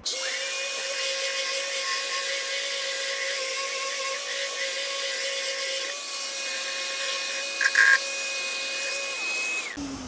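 Random orbital sander running against the painted wooden edge of a Langstroth hive box, with its attached dust extractor drawing through the hose. A steady whine and hiss, with a brief louder burst about eight seconds in. It cuts off suddenly shortly before the end.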